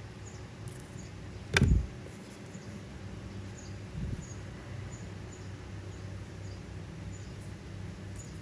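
A sharp knock about one and a half seconds in and a softer one around four seconds, over a steady low hum with faint, scattered high chirps.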